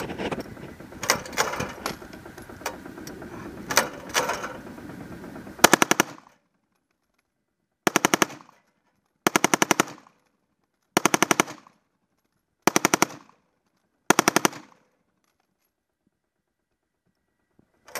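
Browning M1919A4 belt-fed 7.62 mm machine gun firing: a few scattered single shots, then six short bursts of rapid automatic fire about a second and a half apart, with dead silence between the bursts.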